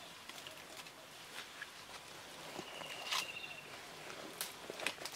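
Forest ambience with scattered light rustles and clicks, and one brief high chirp about three seconds in.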